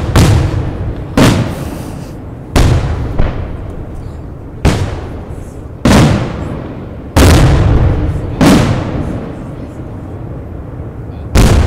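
Aerial firework shells bursting, with about nine loud bangs roughly a second and a half apart, each trailing off in a rumbling echo. A longer gap comes before a last bang near the end.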